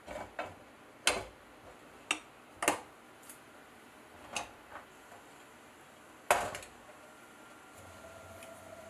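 Hard clicks and clacks of a Tsubame-Sanjo hot sandwich maker being shut and latched over a sandwich, a handful of separate knocks, then a louder clank with a short ring about six seconds in. Near the end a steady hum with a faint held tone sets in.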